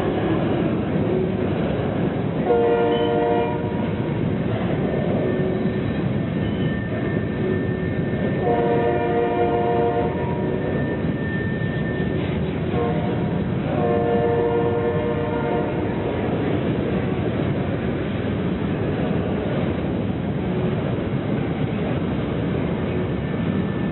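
Diesel locomotive's multi-chime air horn sounding long, long, short, long, the grade-crossing signal, over the steady rumble of the running train.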